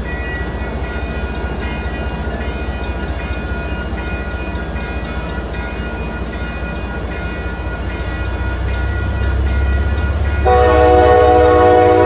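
MBTA commuter rail coaches rolling past close by with a steady rumble and faint high thin tones from the wheels, as the diesel locomotive's low engine rumble grows louder near the end. About ten seconds in, the train's horn sounds a multi-note chord for about a second and a half, the loudest sound here.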